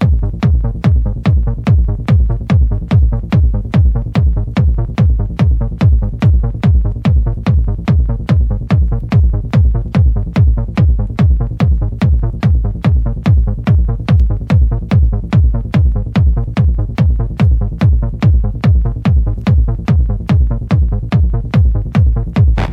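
Sonido caserío electronic dance music: a steady kick drum a little over two beats a second over a heavy bass line, without vocals.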